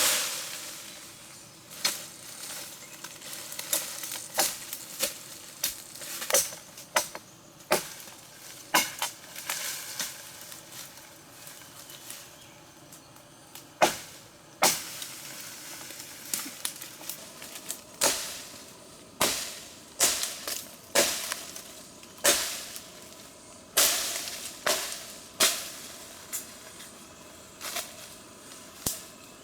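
A run of sharp, irregular knocks and clicks, about one or two a second, some with a short ring, over a faint hiss.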